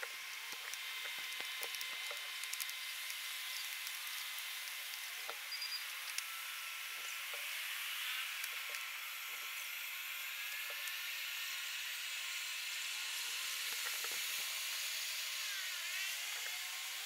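Outdoor ambient sound played back sped up twelve-fold: a steady high hiss with scattered short squeaky chirps and clicks, its pitch pushed up by the fast playback.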